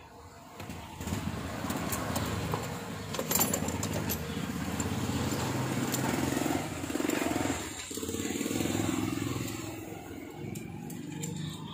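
A motor vehicle engine runs nearby, louder from about a second in, with a brief dip near eight seconds.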